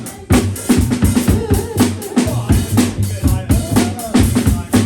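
Live drum kit played with busy, closely spaced kick, snare and rimshot hits over DJ-played music with a steady deep bass line.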